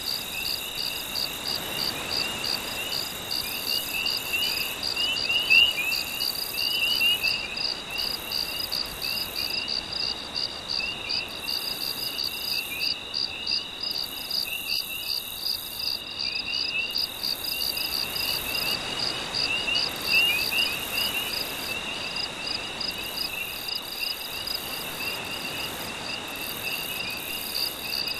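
Night chorus of crickets and frogs. A rapid, steady pulsing chirp runs throughout, with repeated short calls below it and a very high buzz that starts and stops every few seconds. Underneath is a faint, soft wash of gentle waves that swells twice.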